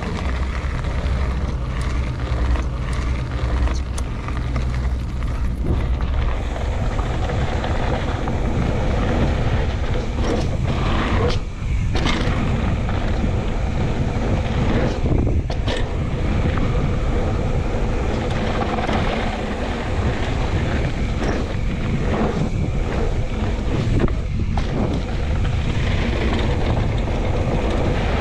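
Wind buffeting the microphone over the steady rumble and rattle of a mountain bike riding down a bike-park trail, with a few sharp knocks along the way.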